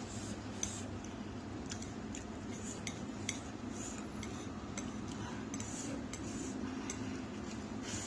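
Eating utensils clicking and scraping against a bowl of noodles, with many light, irregular clicks.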